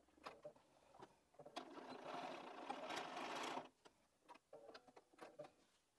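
Bernina 570 QE sewing machine stitching binding onto a quilted cushion in one run of about two seconds in the middle, with a few light clicks before and after it.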